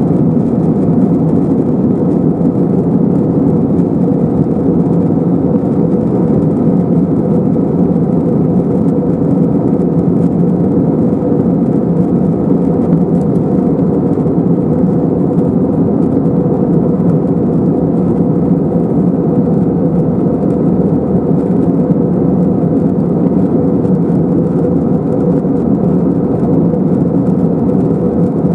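Steady in-flight cabin noise of an Airbus A321-212, heard from a window seat over the wing: the low, even rumble of its CFM56 turbofan engines mixed with the rush of air past the fuselage, unchanging throughout.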